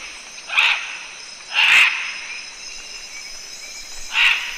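Rainforest insect chorus, a steady high-pitched buzz. Three short hissing bursts stand out over it: one just after the start, one near two seconds in, and one near the end.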